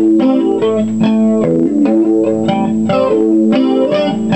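Squier Affinity Stratocaster electric guitar played through an amp with added effect, on the second pickup-selector position next to the bridge (bridge and middle pickups together). It plays a quick run of picked single notes over a ringing lower note.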